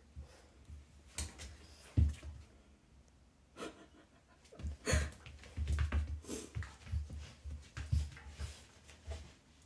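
A cat and a dog play-fighting on a rug: irregular scuffles and soft thumps of bodies and paws, the loudest about two seconds in and again around five and eight seconds.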